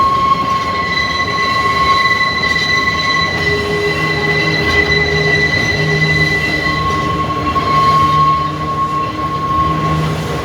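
Manx Electric Railway tramcar running along the line, with a steady high-pitched whine over a low hum.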